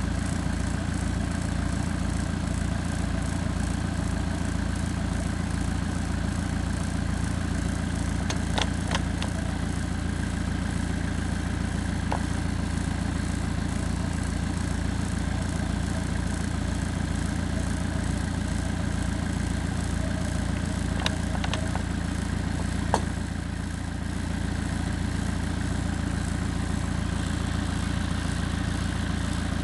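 Volvo EC55C mini excavator's diesel engine idling steadily, with a few faint clicks here and there.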